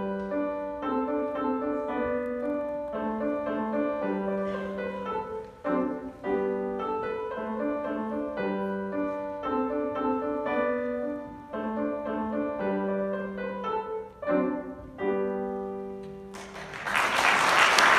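Solo grand piano playing a melody with held notes. The piece ends about two seconds before the close and loud applause breaks out, louder than the piano.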